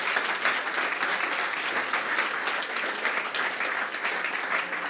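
Audience applauding in a lecture hall: many people clapping, thinning out a little toward the end.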